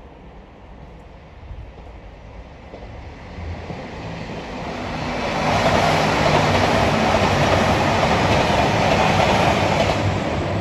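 KiHa 283 series diesel express multiple unit passing through a station at speed without stopping. The noise builds over the first few seconds, is loud from about five seconds in as the cars rush past, and begins to fade at the very end.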